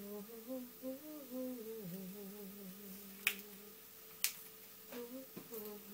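A woman humming a tune to herself in held, gliding notes. Two sharp clicks, about a second apart, cut in around three and four seconds in.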